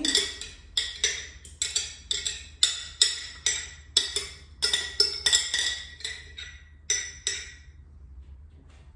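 A metal utensil knocking and scraping inside a glass jar, about three sharp clinks a second, as bone broth concentrate stuck at the bottom is dug out. The knocking stops about seven and a half seconds in.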